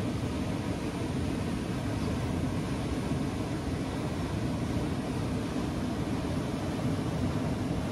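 Water rushing through a concrete outfall channel: a steady, even rush with most of its weight in the low range.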